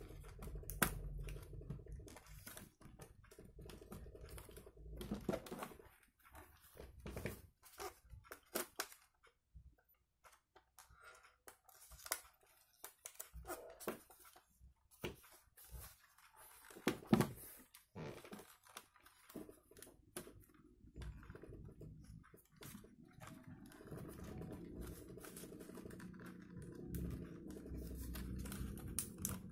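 Scattered small clicks, taps and scrapes of a RAM module being worked into a Lenovo G405 laptop's stiff, new memory socket, with a low steady hum in the first few seconds and again near the end.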